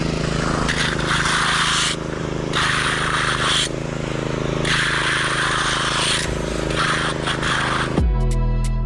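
Small engine of a water pump running steadily, draining rainwater off a new concrete slab, with a rushing hiss that comes and goes every second or two. Music cuts in near the end.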